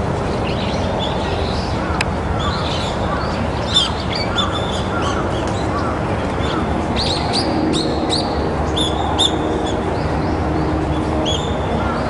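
Small songbirds chirping, with short, high calls throughout and a quick flurry of chirps a little past the middle, over a steady low rumble of background noise.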